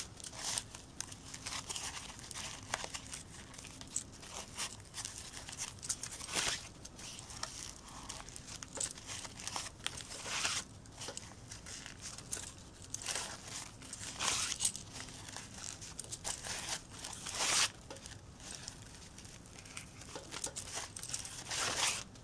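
Fabric strip rustling and crinkling as it is wound tightly round a plastic ring cut from a yogurt container lid, with a louder brief swish every few seconds as each turn is pulled round.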